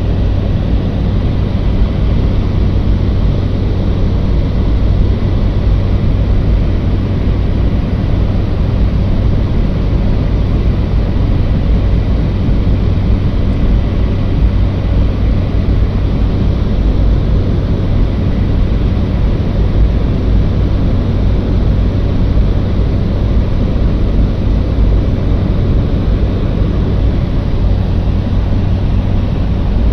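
Loud, steady drone of a propeller aircraft's engines during the landing approach, with a constant low hum and no change in pitch.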